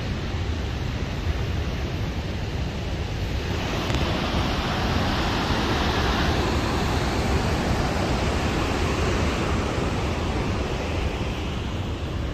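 Rushing water of the Maligne River churning through the narrow canyon gorge: a loud, steady rush that grows louder and brighter about three and a half seconds in.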